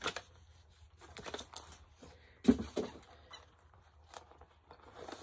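Bubble wrap and small packaging being handled and unwrapped by hand: scattered small crackles and clicks, with one louder knock about two and a half seconds in.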